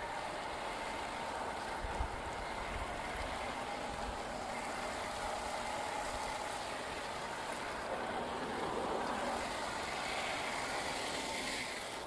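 Electric motor and gears of a 1/10-scale RC crawler whining steadily as it drives, over a steady noisy hiss, with one small knock about two seconds in.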